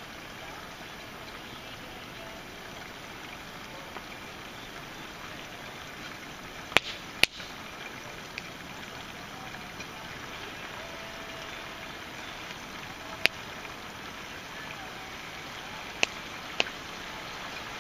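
Wood campfire burning with a steady hiss, broken by sharp loud pops of crackling wood: a pair about seven seconds in, one near thirteen seconds, and another pair near the end.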